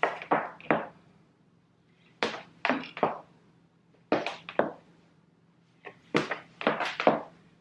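Footsteps in thin-heeled strappy sandals on a wooden floor: sharp heel clacks in four bunches of two to four steps, with short pauses between.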